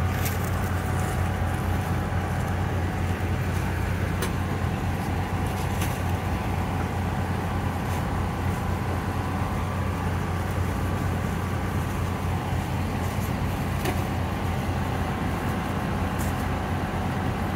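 An engine running steadily at idle, a low even rumble, with a few faint clicks and knocks over it.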